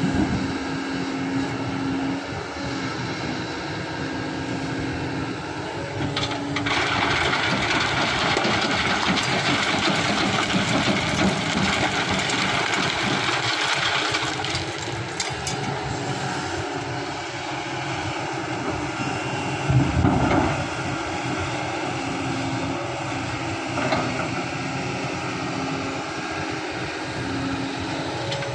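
Kobelco hydraulic excavator's diesel engine running under load through its dig-swing-dump cycle, with sand and gravel rushing and rattling over a steel screen into a dump truck's bed. There is a single heavy knock about 20 seconds in.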